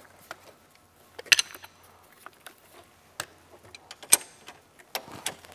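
Scattered metallic clicks and clinks of hand tools being worked on an ATV shock absorber's mounting bolt, a wrench being fitted to hold the bolt. A sharper knock comes about a second in and another about four seconds in.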